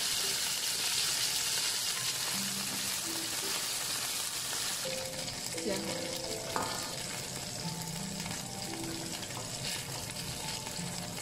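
Cornstarch-coated grouper pieces sizzling in hot oil in a frying pan as they are turned with chopsticks. The sizzle is strongest in the first half and eases after about five seconds, with a single light tap about two-thirds of the way through.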